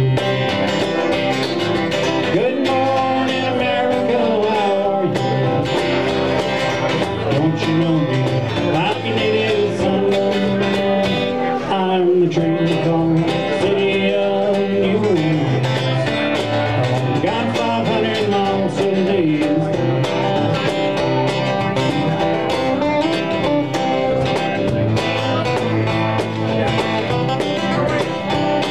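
Two acoustic guitars strumming and picking a country-folk song live, with a man singing over them at times.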